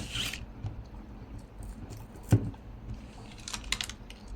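Stamping supplies handled on a tabletop: two dull knocks, one at the start and one about two seconds in, then a few light clicks near the end.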